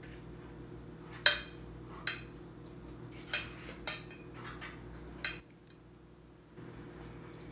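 A metal spoon clinking and scraping against a glass plate: about five sharp clinks spread over a few seconds, the loudest about a second in.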